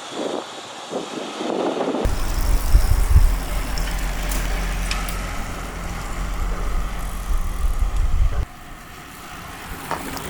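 Low, fluctuating wind rumble on the camera microphone while cycling at speed, starting abruptly about two seconds in and cutting off suddenly about eight seconds in.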